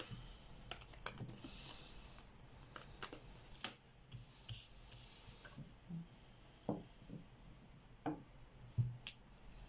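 Tarot cards being handled and laid on a table: scattered soft clicks, taps and light rubbing, a few with a dull knock.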